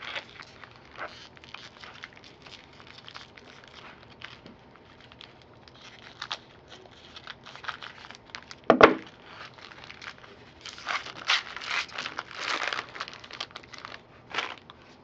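Baseball card pack wrappers crinkling and tearing as the packs are opened by hand, with a single thump about nine seconds in. The crinkling gets louder and busier in the last few seconds.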